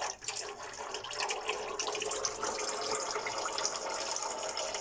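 Gear oil pouring out of a Ford Expedition's rear limited-slip differential in a steady stream: the old oil being drained during a flush meant to cure clutch chatter on turns.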